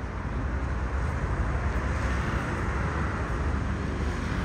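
Steady low engine rumble and traffic noise, with a hiss that swells and fades about halfway through.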